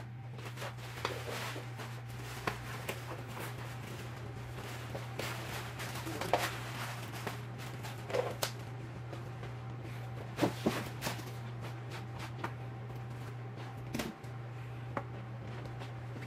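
Scattered light clicks, knocks and rustles of hands fitting the plastic seat and fabric cover of a baby swing, over a steady low hum.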